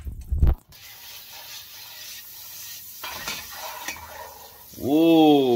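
Butter sizzling steadily as it melts in a hot nonstick pan on high heat, after a short knock against the pan at the start. Near the end a drawn-out vocal sound rises and falls over the sizzle.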